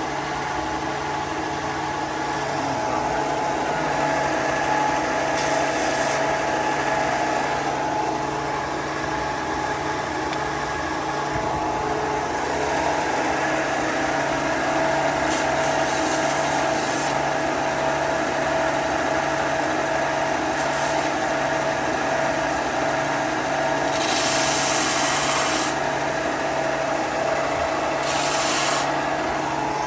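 A woodworking power tool runs steadily with a whine, with short bursts of hissing as it cuts wood: about 5 s in, around 15 to 17 s, a longer one around 24 s, and another near the end.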